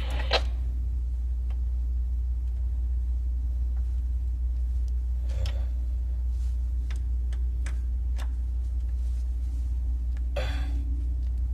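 A steady low rumble, with a few faint metallic clicks as a spanner works the adjusting bolt of a deck crane controller's limit switches, several of them between about six and eight seconds in.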